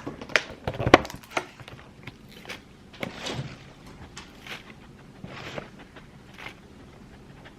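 Kitchen handling noises: a quick cluster of sharp knocks and clicks in the first second and a half, the loudest about a second in, then softer scattered rustles.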